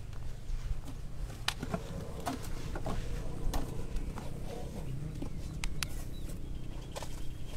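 Asian elephants feeding on a pile of fruit, vegetables and banana leaves: scattered crunching and crackling snaps as they break up and chew the food, over a low steady rumble.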